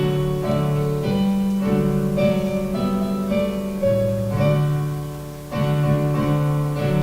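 Keyboard playing the introduction to a congregational hymn: a series of held chords, changing every half second or so.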